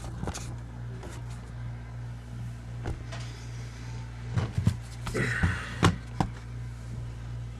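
Steady low electrical hum with scattered clicks and light knocks from handling bench test equipment, pressing controls and turning knobs, with a brief rustle about five seconds in.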